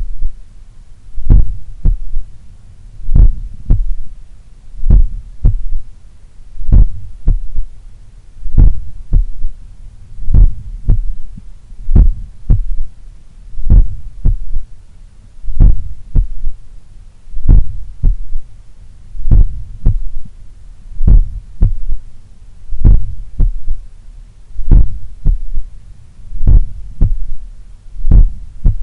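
Human heartbeat heard through a stethoscope at the cardiac apex: slow, regular, powerful lub-dub beats over a low hum, with a third heart sound (S3) after each. The uploader puts the S3 down to blood recoil or a slightly larger, supple left ventricle.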